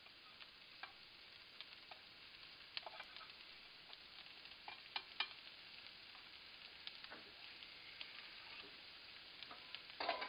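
Rice and vegetables sizzling faintly in oil in a wok, with scattered clicks and scrapes of a metal spatula and pan against the wok. A louder cluster of scrapes comes near the end.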